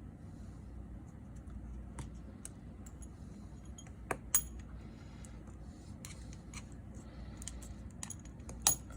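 Light clicks and taps of small metal repair tools and parts being handled on an opened iPhone 6s Plus, with two sharp metallic clicks a little after four seconds in and another near the end, over a faint low hum.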